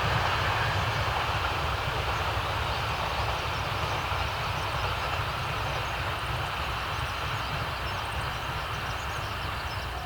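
JR Kyushu electric commuter train running on the line, its wheel and track rumble fading slowly as it draws away.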